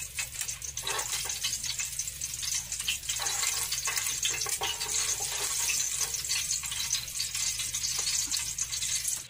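Breaded pork pieces deep-frying in hot oil in a pan: a steady sizzle with dense crackling, cutting off suddenly just before the end.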